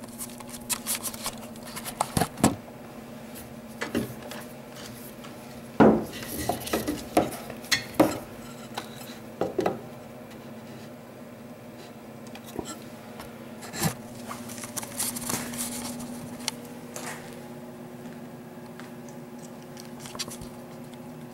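Irregular clicks, clinks and rattles of a 7-prong trailer plug being handled and pushed into the truck's rear socket to power the spreader, busiest in the first half and again a little past the middle.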